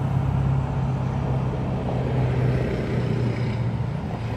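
A steady low hum over a broad rumble, its pitch dipping slightly about three seconds in.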